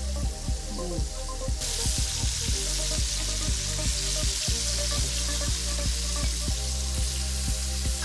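Chicken pieces frying in hot oil in a pan, a dense crackling sizzle that jumps louder about a second and a half in. Background music with a steady beat plays underneath.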